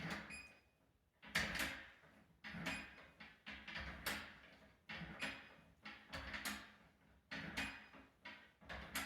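Biometric fingerprint doorknob being worked through administrator setup: a run of about ten sharp mechanical clicks, some with a short electronic beep, as the knob is turned over and over.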